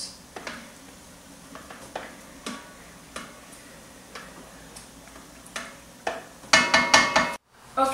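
A spoon stirring tomato sauce in a pot, with scattered light clicks and taps of the spoon against the pot. Near the end a short loud burst of steady, several-toned sound cuts off abruptly.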